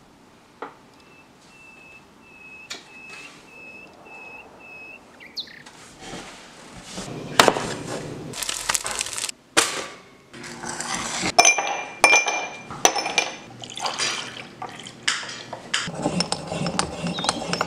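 Kitchen sounds in quick succession: glass and dishes clinking, liquid pouring, and knife knocks on a cutting board. Before them, over the first five seconds, come about eight short, evenly spaced high beeps.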